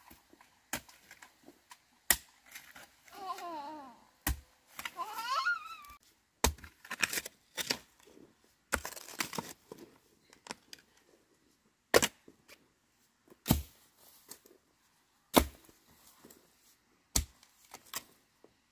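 Sharp knocks or cracks at irregular intervals, about ten in all, a second or several apart, with a brief wavering, rising cry between about three and six seconds in.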